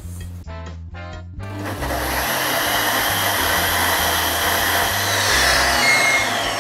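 Thermomix food processor blades spinning up to high speed and milling granulated sugar into icing sugar, a loud steady whirring grind. Near the end the motor winds down with a falling pitch and the machine gives a short beep.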